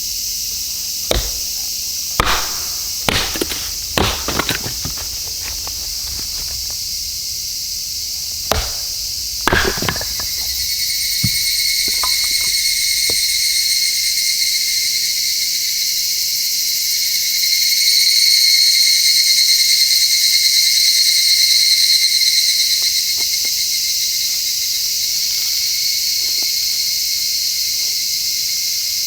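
A steady high chorus of insects, which grows louder about ten seconds in. Over the first ten seconds there are about eight sharp knocks.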